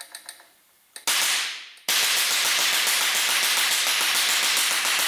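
Home-built tip jet detonation engine running on HHO (oxyhydrogen) gas: after a few faint clicks, one sharp bang about a second in, then from about two seconds in a loud continuous stream of rapid-fire pops and hiss as the tip jets fire and the rotor spins.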